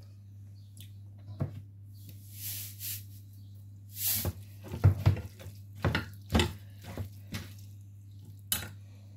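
Kitchen utensils and dishes clattering as food is handled: a string of separate clinks and knocks, with two short scraping sounds in the first half, over a steady low hum.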